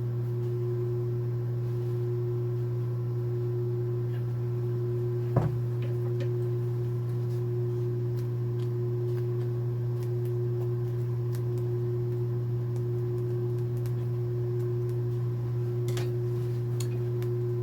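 Steady low electric hum of an idling sewing-machine motor, switched off suddenly at the very end, with a single sharp click about five seconds in.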